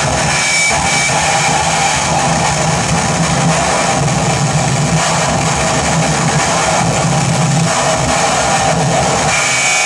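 Live electronic noise music: a dense, loud wall of distorted noise over a low drone, with a thin high whine that sounds briefly near the start and returns near the end.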